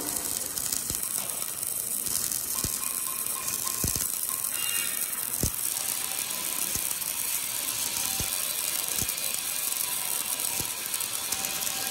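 MIG welding arc on a scaffolding prop welding machine, crackling and sizzling steadily as it lays a weld, with faint knocks about every second or so.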